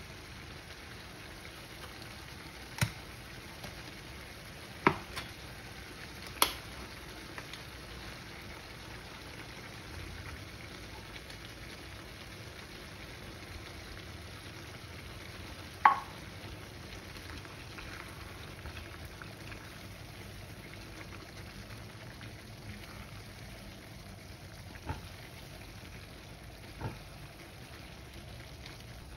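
Diced carrot, celery and onion sizzling steadily in a frying pan, broken by a handful of sharp clicks and taps. One tap about halfway through rings briefly.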